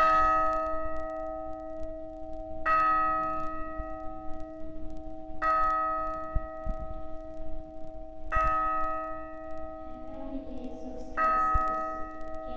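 A church bell tolling slowly: five strokes about three seconds apart, each ringing on and fading under a steady low hum.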